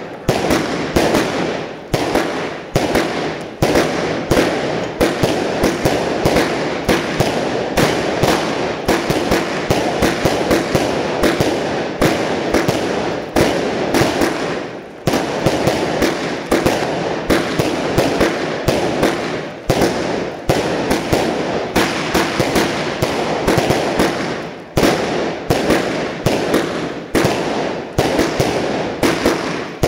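Fireworks display of aerial shells fired in rapid succession from launch boxes ('a cassette' style), bursting bang after bang several times a second. It lets up briefly about halfway through and again near the end.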